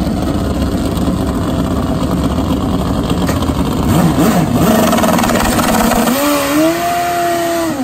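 Turbocharged drag bike engine running rough and loud, blipped up and down about four seconds in, then revved up about six seconds in and held at a steady high note before dropping off at the end.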